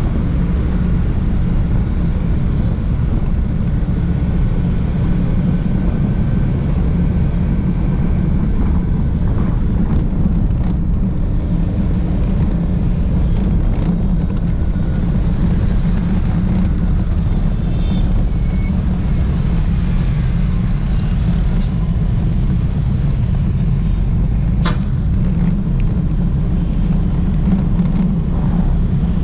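Steady low wind rumble on an action camera's microphone while riding a motorbike in heavy road traffic, with engines and tyres of surrounding motorbikes and cars beneath it. Two brief sharp ticks come about three seconds apart in the latter part.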